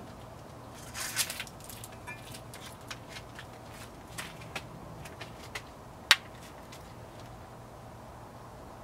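Clicks and knocks of a Porter-Cable cordless drill being picked up and handled, scattered through the first six seconds with the sharpest knock about six seconds in, over a faint steady low hum.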